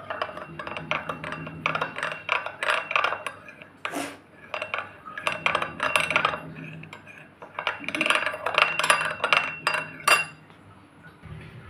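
Steel spoon stirring a thick white mixture in a small glass bowl, clinking and scraping against the glass in three spells, with a sharper tap against the bowl twice.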